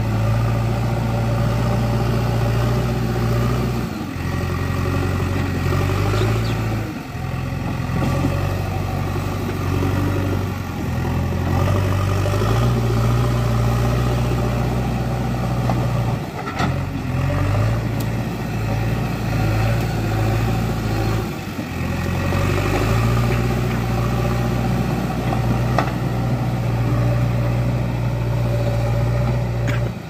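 JCB 3DX backhoe loader's four-cylinder diesel engine running steadily under load while the machine drives and levels soil with its front bucket. The engine note dips briefly a few times as the load and throttle change.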